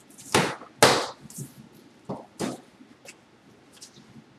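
A large cardboard shipping box being cut open: a blade slitting the packing tape along its top and the cardboard flaps being handled, heard as several short scraping strokes, the sharpest about a second in.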